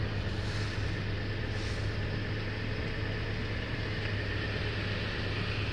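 Steady low hum of the Suzuki Grand Vitara's V6 engine idling, heard from inside the cabin.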